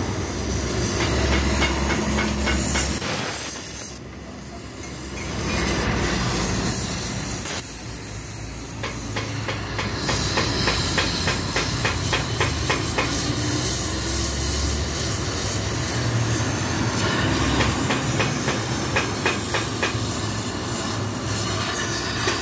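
Gas cutting torch hissing as it cuts out a baffle inside a Yamaha Jupiter Z muffler, with rapid crackling from the burning steel. The hiss drops away briefly about four seconds in, then comes back.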